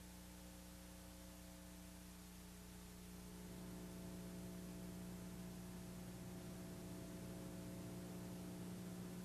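Steady low electrical hum with a faint hiss, getting a little louder about three and a half seconds in.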